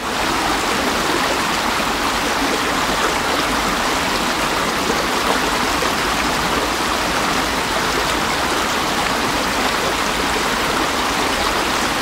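Stream water flowing, a steady, even rush that does not change. The microphones are set a little further back from the water so it sounds less like plain white noise.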